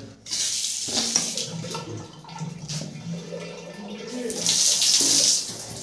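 Water running from a wall-mounted tap and splashing onto a marble floor. About four and a half seconds in, a louder, hissing spray of water from a handheld toilet spray (health faucet) lasts about a second.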